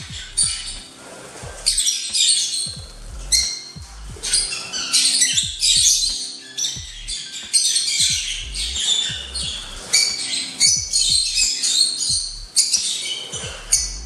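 Lovebirds chattering with repeated shrill squawks and chirps, over background music with a steady beat.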